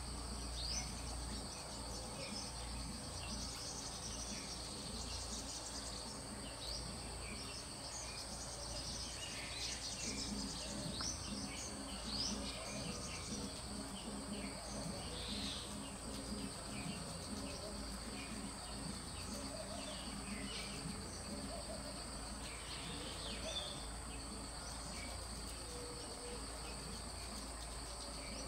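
Steady, high-pitched insect drone running throughout, with short bird chirps scattered here and there.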